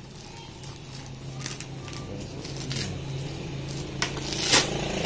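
Fabric rustling and scraping as hands work a foam dummy plate into the pocket of a tactical vest, with several short scrapes and a sharper one near the end. Underneath, a low steady hum grows gradually louder.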